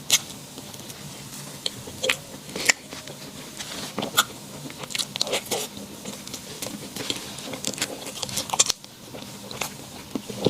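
Crunchy food being bitten and chewed close to the microphone: irregular sharp crunches and crackles a few times a second.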